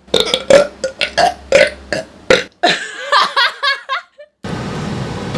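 A woman burping: a quick string of about eight short belches, then one longer, wavering belch. It stops abruptly about four seconds in, and a steady background hiss follows.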